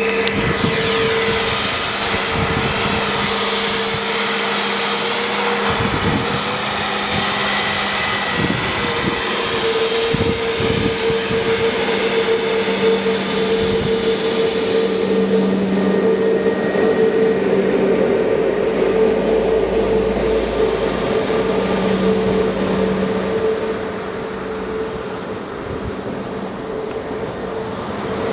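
Airbus A320's twin jet engines at takeoff thrust: a loud, steady noise with whining tones, easing slightly near the end.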